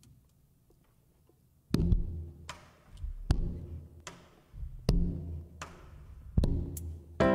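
Song intro: a slow, steady beat of deep drum thumps, about one every 0.8 seconds, starting after a short quiet. Near the end a keyboard chord comes in.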